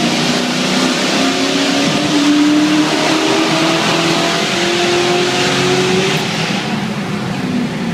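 Exhaust of a 2004 GT with its catalytic converters removed, accelerating hard in a tunnel: the engine note climbs in pitch for several seconds, then eases off about six and a half seconds in.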